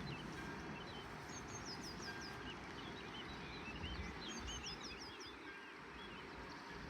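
Small songbirds singing over a steady rushing background: a quick run of five or six high down-slurred notes, heard twice, with scattered chirps in between.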